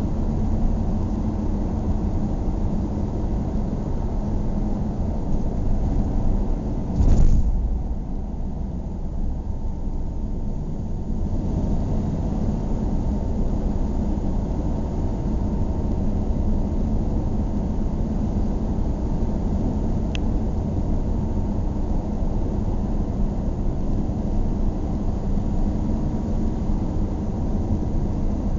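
Steady low rumble of engine and tyre noise heard from inside a moving car's cabin. About seven seconds in there is a brief louder thump, and the higher hiss is duller for a few seconds after it.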